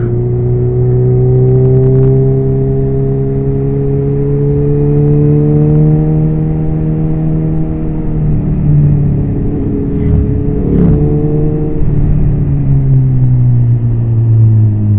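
Suzuki B-King's inline-four engine pulling under load, its pitch climbing slowly, with a brief break about ten seconds in like a gear change, then dropping in pitch near the end as the throttle eases. A low wind rumble sits under the engine note.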